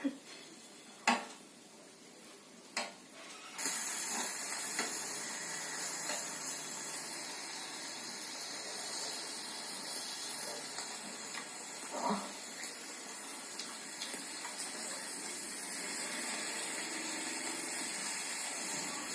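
Korean barbecue meat, gopchang and beef brisket, sizzling on a hot grill: a steady hiss that starts suddenly a few seconds in, after a couple of sharp clicks of utensils, with another click near the middle.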